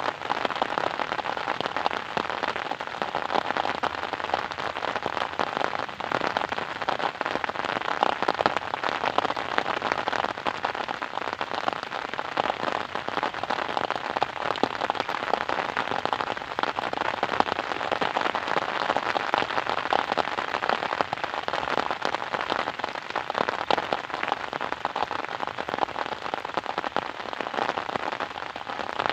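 Steady rain falling on a surface, a dense even patter of drops.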